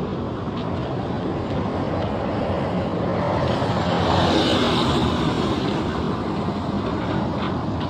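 Road traffic noise with a vehicle engine passing close by, swelling to its loudest about halfway through and then fading.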